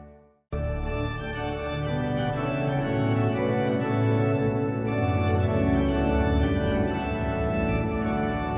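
The last chord of a hymn on a digital church organ dies away into a moment of silence. About half a second in, organ music starts abruptly and continues with sustained, changing chords.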